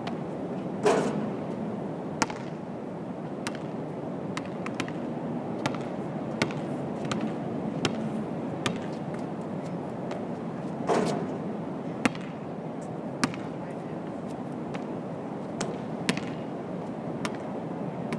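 Basketball striking the hoop twice, about ten seconds apart, with scattered sharp bounces of the ball on the hard court in between, over steady background noise.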